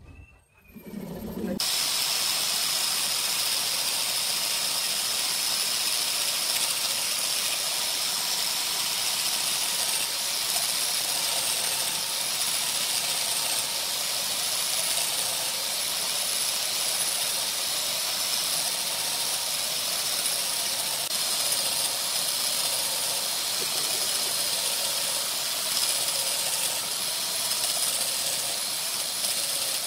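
A workshop machine switches on about a second and a half in and runs with a steady hiss and faint high whines.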